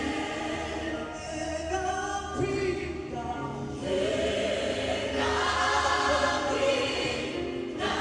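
Choir singing gospel music, several voices holding long notes together.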